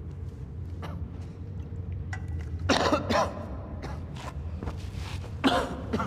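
A man coughing, a double cough about halfway through and another sharp cough near the end, over a low steady hum.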